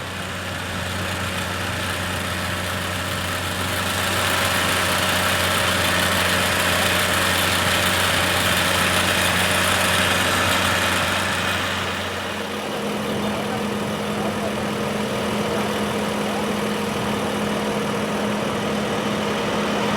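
Fire engine's motor running steadily at idle, its hum stepping up to a higher, faster pitch about twelve seconds in. A rushing hiss swells over it for several seconds before that.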